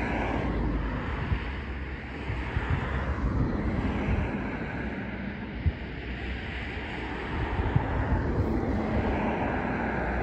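A steady distant engine drone under wind buffeting the microphone.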